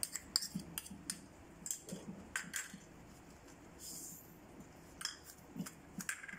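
A spoon scraping and clinking against small bowls and a stainless steel mixing bowl as ingredients are scraped out, in light, irregular taps with a quieter pause midway.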